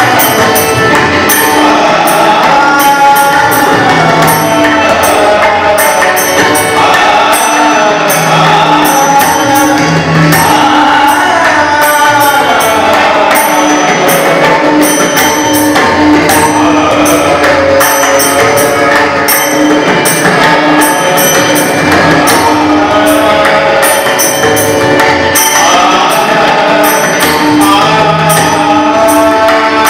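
Bhajan singing with harmonium accompaniment, with tabla and pakhawaj drumming in the sixteen-beat teentaal cycle.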